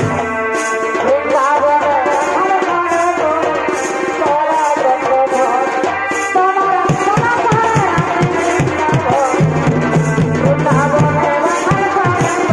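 Live Purulia Chhau dance music: drums beating a steady, fast rhythm under a wavering, bending melody on a reed pipe.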